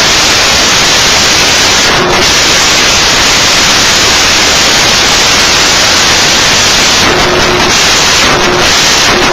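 Loud, steady static hiss on a NOAA Weather Radio broadcast, heard where the warning alarm tone is due; no tone comes through.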